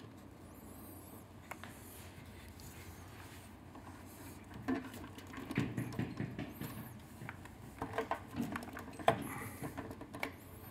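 Faint room tone, then from about halfway a scatter of light clicks, taps and rustling from hands handling parts on a motorcycle's frame under its slid-back fuel tank, with one sharper click near the end.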